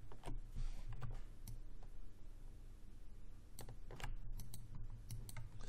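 Scattered clicks of a computer keyboard and mouse as keys and buttons are pressed, irregular and denser in the second half, over a faint low hum.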